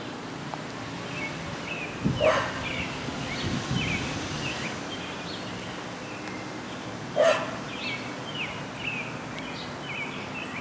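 A dog barks once about two seconds in and again about seven seconds in, over continual chirping of small birds.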